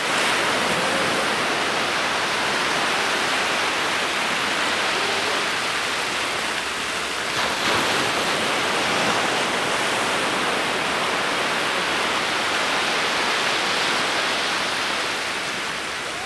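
Steady rushing wash of surf along the shoreline, swelling slightly about halfway through.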